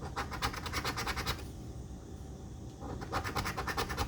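Scratch-off lottery ticket being scratched in rapid back-and-forth strokes, the coating scraped away. The scratching stops for about a second and a half midway, then starts again.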